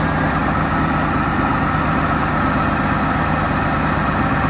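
1991 Chevrolet Camaro engine idling steadily, a regular low pulse with a thin steady whine above it.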